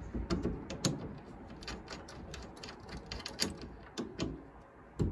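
Irregular small metallic clicks and taps of hardware being handled and fitted by hand on a Land Rover Series 3's steel bulkhead vent, a few a second, with no steady rhythm.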